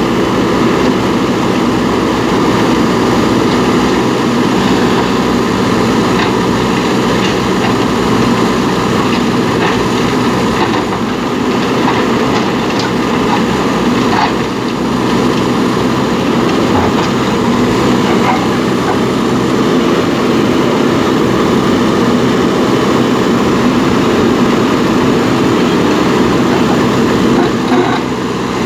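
JCB backhoe loader's diesel engine running steadily at working revs, with a few faint knocks in the middle.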